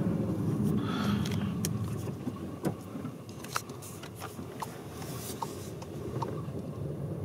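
Skoda Superb's TSI petrol engine running with a steady low rumble that eases slightly a few seconds in, with a scatter of light clicks and knocks over it.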